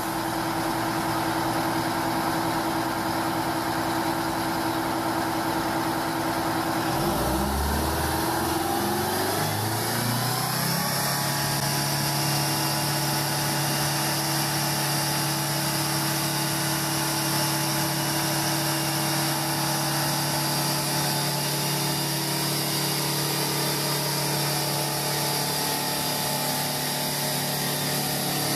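Diesel engine of a heavy 8x8 tractor truck running under load as it pulls a lowboy trailer through mud. About a quarter of the way in, the engine pitch climbs and then holds steady at a higher speed.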